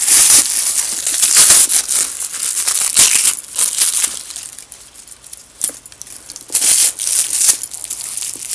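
Paper wrapping crinkling and tearing as it is pulled off a backpack's straps by hand, in irregular bursts: busy for the first few seconds, a lull, then another burst near the end.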